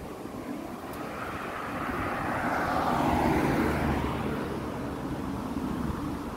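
A van driving past on the road, its engine and tyre noise swelling to a peak about three seconds in and then fading away.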